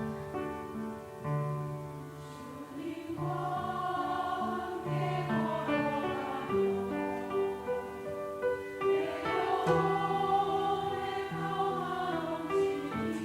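Church choir singing with piano accompaniment. The piano plays alone at first, and the choir comes in about three seconds in, swelling louder near the end.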